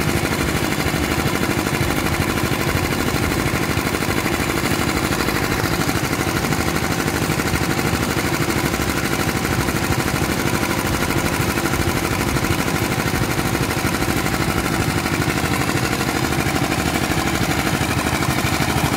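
Engine of a bored pile soil-drilling rig running steadily, with a rapid, even beat.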